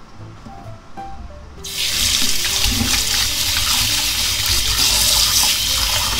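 Kitchen tap running into a stainless steel bowl of catfish pieces, splashing as hands rub and rinse the fish; the water comes on suddenly about a third of the way in. Soft background music plays underneath.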